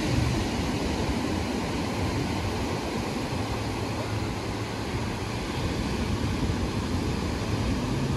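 Ocean surf breaking and washing up a sandy beach: a steady rushing noise with a low rumble.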